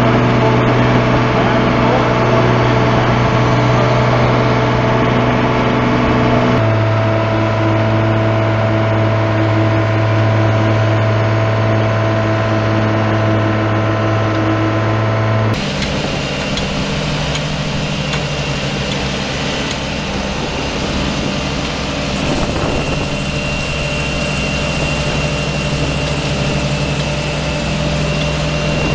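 Engines of slipform curb machines running steadily as they extrude concrete curb, a constant mechanical drone with a pitched hum; the tone changes abruptly twice, about a quarter of the way in and again about halfway.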